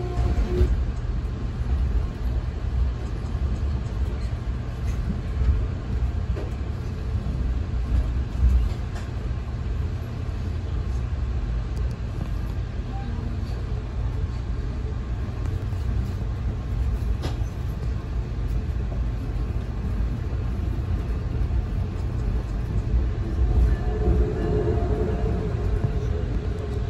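Steady low rumble of an Amtrak passenger train running along the track, heard from inside the passenger car, with scattered faint clicks. A steady tone joins in near the end.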